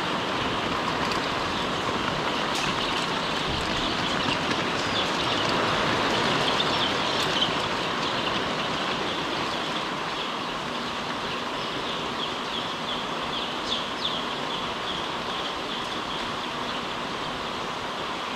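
A large flock of young pullets peeping, a dense, steady chorus of many birds at once, over a constant background noise of the poultry house.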